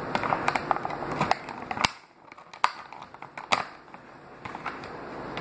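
Scissors and plastic toy packaging being worked by hand to cut a figure free of its string: a run of small clicks and snaps, with a few sharper ones around the middle.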